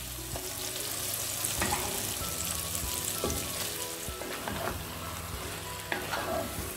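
Marinated chicken pieces and an onion-tomato base sizzling in oil in a nonstick pot, turned with a wooden spatula in scraping strokes about every second and a half.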